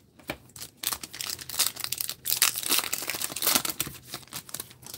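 Foil wrapper of a trading-card pack being torn open and crinkled by hand: dense crackling that starts about a second in and eases off near the end.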